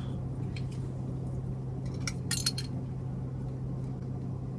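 Scattered light clicks and clinks of small objects being handled, with a quick cluster of them about two seconds in, over a steady low hum.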